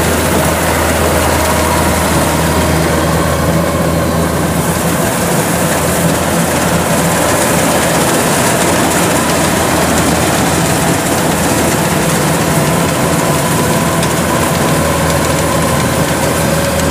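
Kubota DC93 combine harvester's engine running steadily at working speed as the machine cuts and threshes flattened rice.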